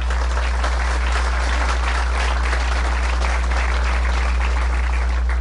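Audience applauding steadily for about five seconds, thinning out near the end, over a steady low hum.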